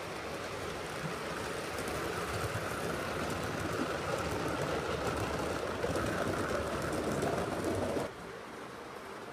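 7mm-scale model steam locomotive and coaches running along the track, a steady rolling rush of wheels and motor that grows louder as the train passes, cut off suddenly about eight seconds in and replaced by a quieter hiss.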